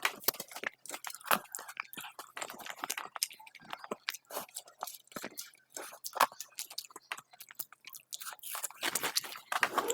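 A person chewing and biting food close to the microphone: irregular wet mouth clicks and crunches, a few sharper bites standing out.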